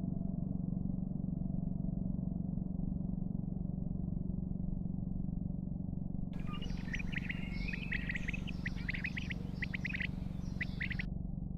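Birds chirping in quick, sharp notes, starting about six seconds in and stopping shortly before the end, over a steady low hum.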